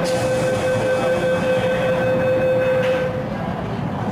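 Door-closing warning tone on a Hong Kong MTR Island Line platform: a steady electronic tone held for about three seconds, then stopping, over the hum of the waiting train and the station.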